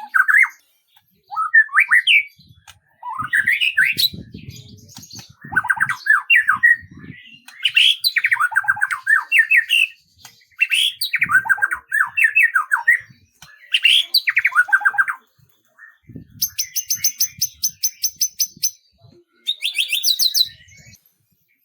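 A songbird singing a varied song of quick whistled phrases, then two fast, high, even trills near the end.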